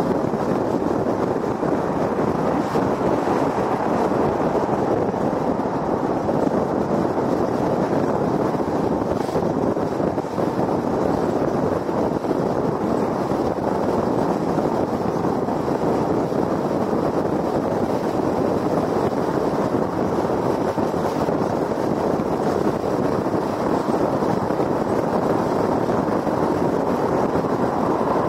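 Steady road noise of a car cruising at highway speed: tyres rolling on concrete pavement and rushing wind, even throughout.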